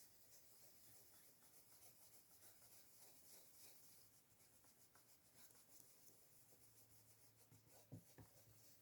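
Near silence, with faint soft rubbing of an ink blending brush working Distress ink over a stencil, and two light taps near the end.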